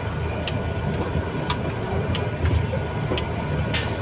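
Truck's diesel engine running low, heard inside the cab while it rolls slowly, with sharp clicks and rattles every half second to a second and a short hiss near the end.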